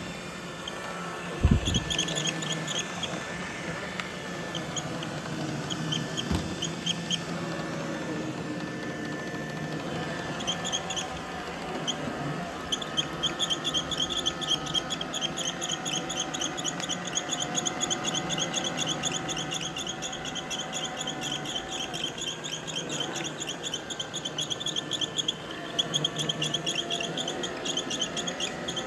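iRobot robot vacuum running with a steady low hum and rapid runs of short, high-pitched squeaks, many a second, that come and go in stretches. A single knock sounds near the start.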